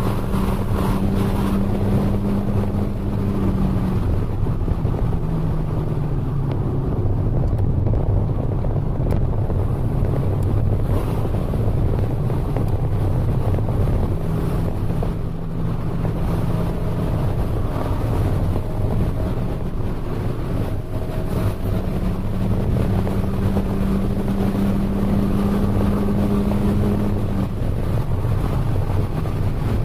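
Car engine and road noise heard from inside the cabin while driving: a constant low rumble with a humming engine note that holds steady for several seconds at a time and drops to a lower pitch about four seconds in and again near the end.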